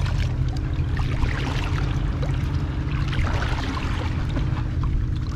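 Water splashing against the side of a boat as a redfish, held by the tail, is shaken back and forth in the water to revive it for release. Under it runs a steady low rumble.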